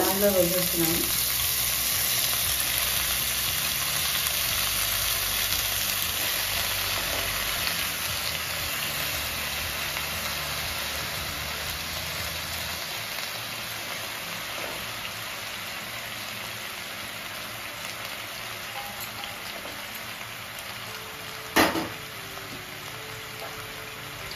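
Washed spinach leaves and stems sizzling in hot oil in a pan after being tipped in, the sizzle loudest at first and slowly dying down. A single sharp click near the end.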